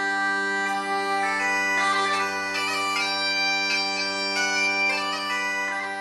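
Bagpipes playing a tune: the chanter's melody moves from note to note over a steady drone.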